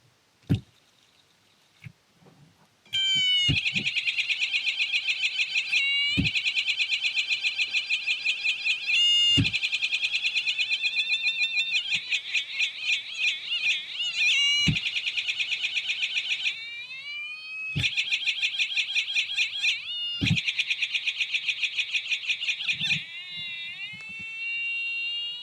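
Homemade fidget spinner's small speaker giving an electronic chirping trill, a fast-pulsing high tone that starts about three seconds in after a few sharp clicks. Short knocks recur every few seconds, and near the end the tone glides up and down in pitch.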